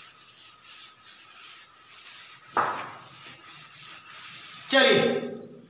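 Chalkboard being wiped clean with a duster, rubbing across the board in quick repeated strokes. About halfway through there is one sudden, louder short sound.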